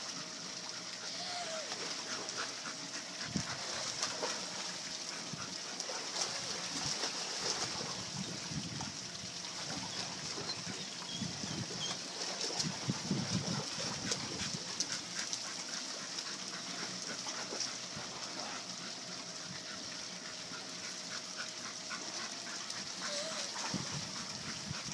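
A large black dog gives a few short whines while pacing wet paving, and splashes through the water a third of the way in. A steady hiss of moving pool water runs underneath.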